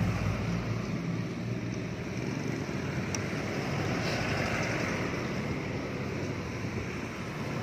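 Steady outdoor road noise of passing traffic and wind, with a low engine hum that fades out early on.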